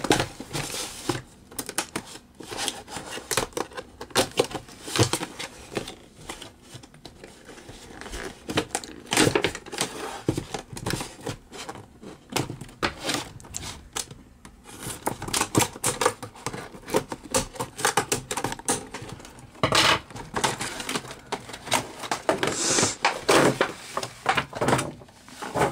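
Hands opening a doll's cardboard box with its plastic window: irregular clicks, taps, rustles and crinkles of card and plastic being pulled apart and handled.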